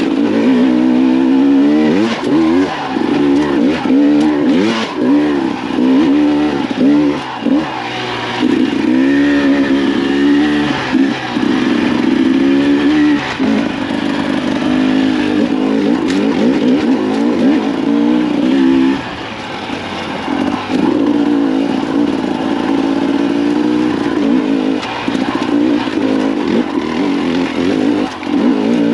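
2024 Husqvarna TE300's two-stroke single-cylinder engine revving up and down continually as the dirt bike is ridden, with a brief easing-off about two-thirds of the way through and scattered knocks.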